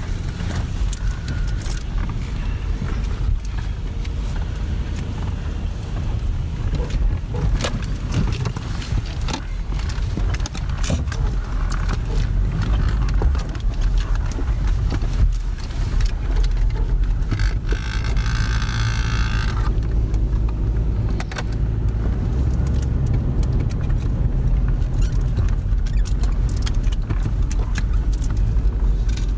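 2017 Toyota 4Runner TRD Pro's V6 running steadily as it drives a rough dirt trail, heard from inside the cabin: a constant low rumble with frequent clicks and knocks as the truck rattles over rocks and ruts. About two-thirds of the way through comes a higher buzzing rattle lasting about two seconds.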